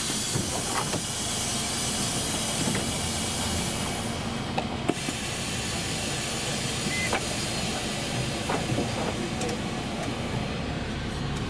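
Compressed air hissing from a Karosa C954E bus's pneumatic door gear at a stop, over the idling engine. The hiss is loud for about four seconds, then continues more softly until near the end, with a couple of sharp clicks in between.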